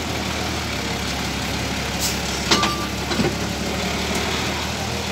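Nissan dump truck's diesel engine idling steadily, with a few sharp knocks around the middle, the loudest about two and a half seconds in.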